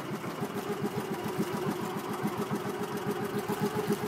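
Motorized outrigger boat's engine running steadily, a rapid even chugging, with a hiss of wind and water over it.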